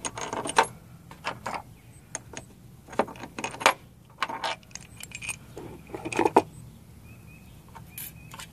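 Irregular metallic clinks and taps of steel bolts being pushed through the bolt holes of a removed EGR valve and knocking against its metal body as it is handled.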